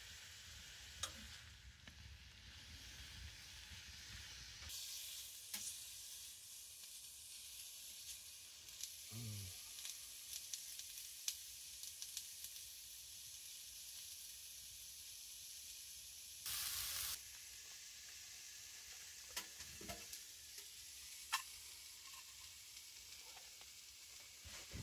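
Food sizzling faintly in a pan on a wood stove, with scattered sharp clicks and a brief louder burst of noise about two-thirds of the way through.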